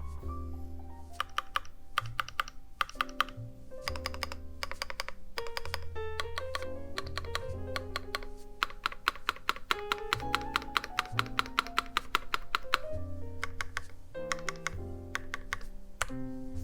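Keystrokes on a custom Iron180 mechanical keyboard with a brass plate, lubed JWK Epsilon switches and GMK Bushido keycaps, typed in bursts. The longest is a fast run of clicks from about nine to thirteen seconds in. Background music plays under the typing.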